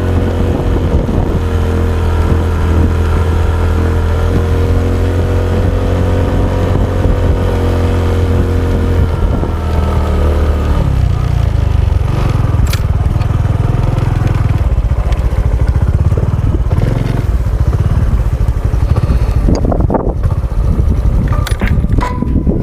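Honda XRM 125 dual sport's single-cylinder four-stroke engine running steadily while riding. About halfway through the engine note drops lower as the bike slows.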